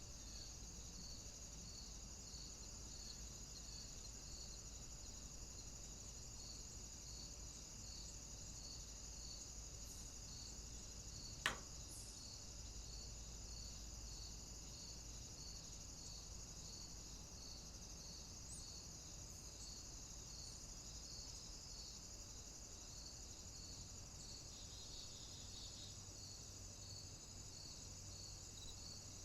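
Crickets chirping steadily in an even rhythm, a little more than one chirp a second, over a constant high insect hum. One sharp click about a third of the way in.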